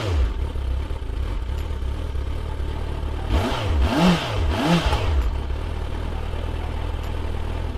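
Motorcycle engine idling steadily, with three quick throttle blips in a row about three to five seconds in.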